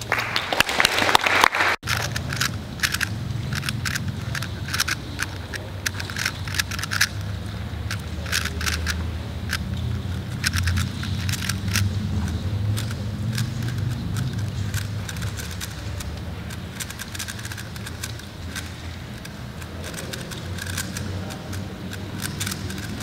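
3x3 Rubik's speedcube being turned quickly: runs of quick plastic clicks and clacks, busiest in the first half, over a steady low room hum and faint background voices.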